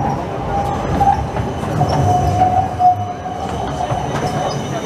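Siemens Combino low-floor electric tram passing close by at low speed on street track: a steady running rumble of the wheels on the rails, with a wavering squeal-like tone that fades in and out over it and a few light clicks.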